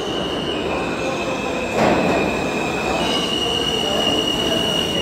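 R160 subway train pulling into the station, its wheels squealing in a high steady note that steps in pitch a couple of times over a rising rumble and rattle. A loud clunk comes about two seconds in.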